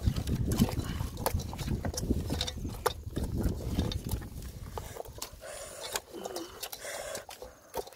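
Hands rubbing salt and chili seasoning into whole raw fish in an aluminium pot: wet squelching and rubbing, with many small clicks as the fish and hands knock against the pot. The handling is heaviest in the first half and lighter after about five seconds.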